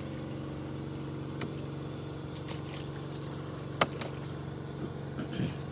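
Air compressor engine running with a steady, even hum, feeding air to lift bags under a sunken sailboat; a single sharp knock about four seconds in.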